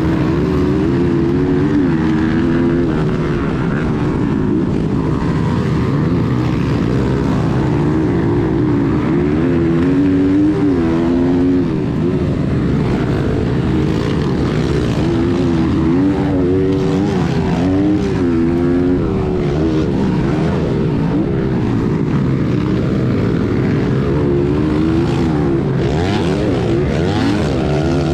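Small four-stroke pit bike engine heard from onboard, its pitch rising and falling over and over as the throttle is opened and closed through the track's turns and jumps. Other pit bikes' engines run close around it.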